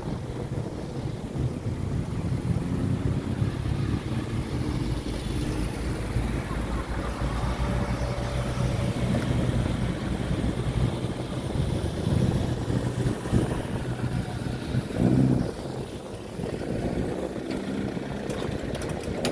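Classic cars driving past one after another with their engines running, then a tourist road train rolling by.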